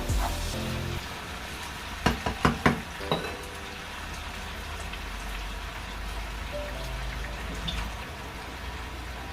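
Bell pepper and tomato sauce frying steadily in a pot, with an even sizzle. A quick run of about five sharp knocks comes between two and three seconds in.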